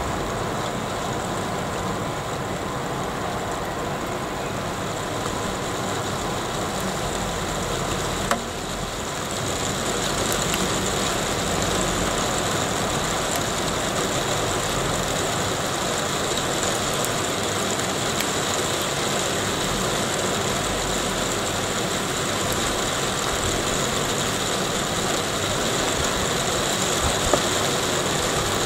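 Very heavy rain shower pouring down, a dense steady hiss that grows a little louder about ten seconds in, with a single sharp tick a couple of seconds before.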